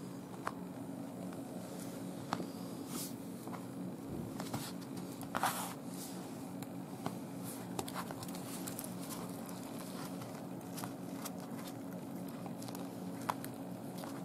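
A cat chewing a whole raw day-old chick: irregular wet crunches and sharp clicks of small bones breaking, the loudest a short crunch about five and a half seconds in. A steady low hum runs underneath.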